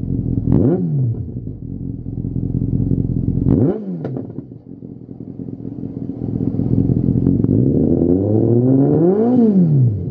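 Yamaha XJR1300's air-cooled inline-four running through a Lextek GP1 aftermarket silencer, idling and revved three times. There is a quick blip about half a second in and a sharper one at about three and a half seconds. Near the end a slower, longer rise climbs to a peak and falls back.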